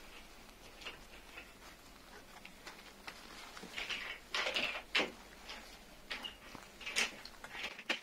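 Hand-handling noise: rustling of long faux fur and small scrapes and clicks of a wire fan guard and its bolts being fitted by hand, with a few louder scraping rustles about halfway through and again near the end.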